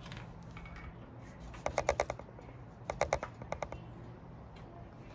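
A marker tapped rapidly on paper over a wooden table: two quick runs of light taps, five or six each, about two seconds in and again a second later.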